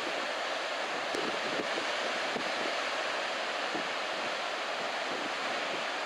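Chest-to-shoulder-high surf breaking on a beach, a steady rush of waves, with a fairly strong onshore wind buffeting the microphone.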